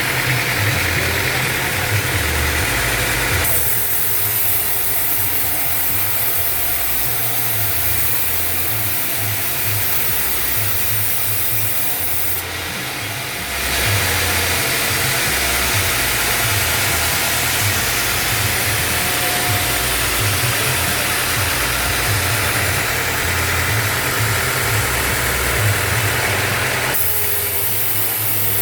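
Band sawmill running, with a steady low machine drone. A loud high hiss comes in a few seconds in, drops out briefly around the middle, and stops near the end.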